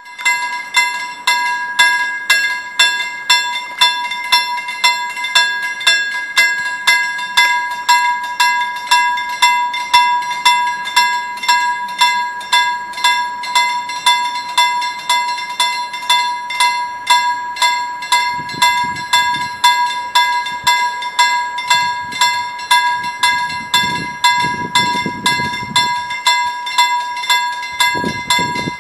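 Level crossing warning bell ringing steadily, about two strikes a second, as the barriers are down for an approaching train. A low rumble comes and goes in the second half.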